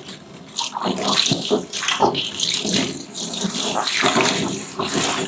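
Kitchen tap running into a stainless steel sink as a plate is washed under the stream, with water splashing off the dish. The water gets louder about a second in.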